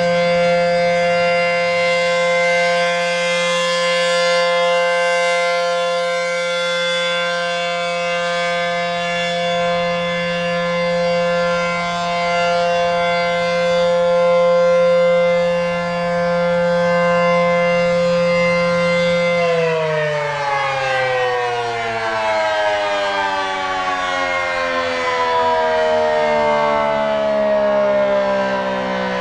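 ACA P-15 Penetrator outdoor warning siren, a single-phase unit with a 9/12-port rotor, sounding its steady full-alert chord, shrill and very loud. About two-thirds of the way in it cuts off and winds down, its pitch sliding steadily lower.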